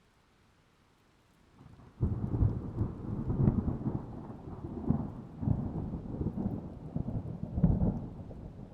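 Thunder: after a near-silent lull, a sudden thunderclap about two seconds in rolls into a long, low rumble with several further loud cracks.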